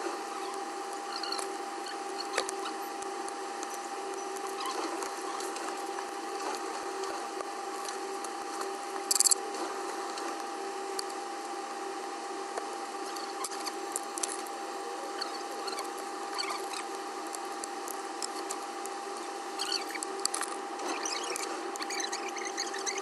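Small tools clicking, tapping and scraping on a phone during repair work, over a steady electrical hum, with one brief louder scrape about nine seconds in.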